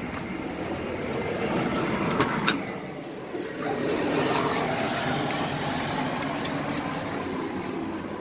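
Two sharp clicks about two seconds in as the box truck's driver's door latch is opened. A steady rushing vehicle noise, swelling and easing off, runs under it.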